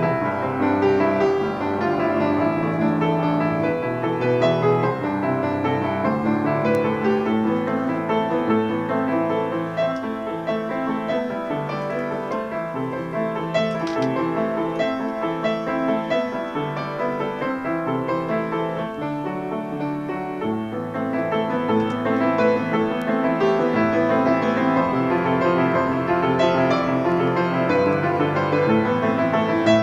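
Solo piano piece played without a break, a steady flow of notes and chords. It turns softer, with the low bass notes dropped, through the middle, and comes back fuller about two-thirds of the way in.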